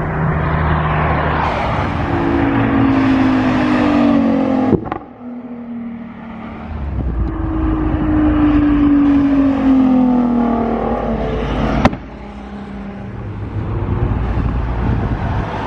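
Sports cars accelerating hard away, their engines revving loud. Twice, about five and about twelve seconds in, a sharp crack comes and the engine sound drops off suddenly before the next car builds up again.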